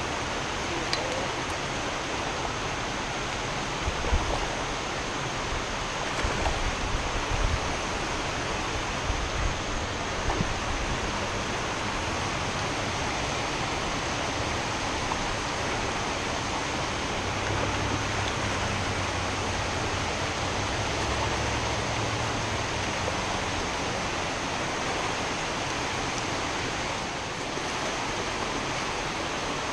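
Creek water rushing steadily over rock ledges, a constant even hiss of flowing water. A few low bumps come through in the first ten seconds or so.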